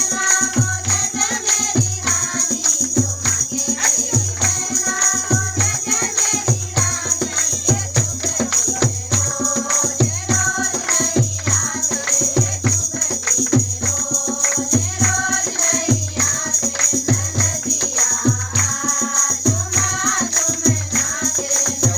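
Dance music: a song with singing over a steady drum beat, about three beats every two seconds, and jingling percussion.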